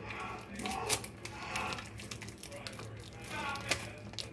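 Scattered light clicks and taps of a knife working against the cheesecake's packaging to pry the cake out, with sharper clicks about a second in and near the end.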